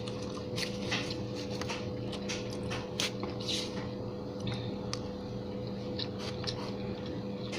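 Close-miked chewing of fried chicken wings: a string of short wet mouth clicks and smacks, over a steady background hum.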